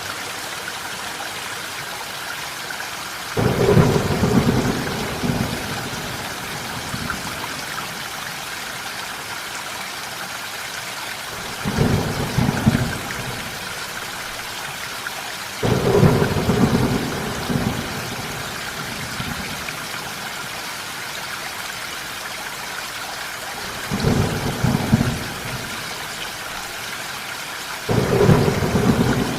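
Steady rain falling, with five rolls of thunder rumbling over it, each lasting a couple of seconds.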